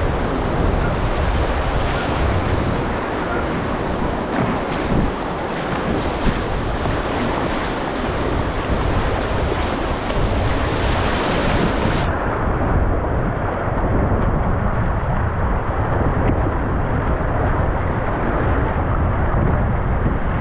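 Choppy, fast-moving river water rushing and splashing against a whitewater kayak's bow, with wind buffeting the microphone. About twelve seconds in the sound turns duller as its high end drops away.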